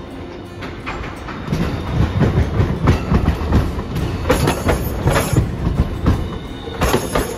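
Streetcar wheels clattering over the rails: a run of irregular knocks that gets louder about a second and a half in and eases off near the end.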